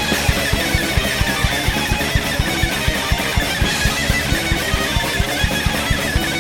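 Loud band music: guitar strummed over rapid, evenly spaced kick drum beats.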